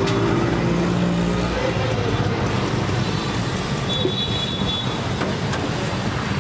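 Steady street traffic noise, with a brief thin high-pitched tone about four seconds in.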